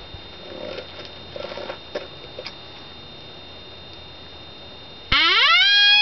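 Horn howler coyote call blown: about five seconds in, a loud howl sweeps sharply up in pitch and holds a high, steady note. Before it, only faint rustles and clicks.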